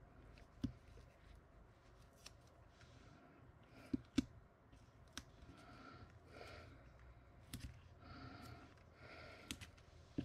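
Faint paper handling: soft rustling of small paper strips being peeled and pressed onto a card, with about six sharp clicks scattered through it.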